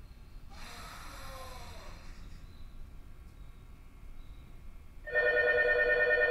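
Quiet station background, then about five seconds in a platform departure bell starts ringing loudly: a steady electronic ring with a fast flutter, signalling that the train is about to leave.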